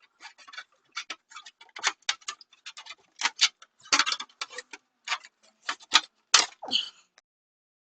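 Irregular run of sharp clicks and clinks, a few each second, loudest about six seconds in.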